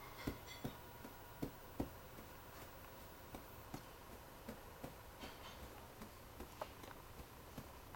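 Faint, irregular soft clicks and rustles of a pet shifting under bed covers, several in the first two seconds and only a few scattered ones after that, in an otherwise quiet room.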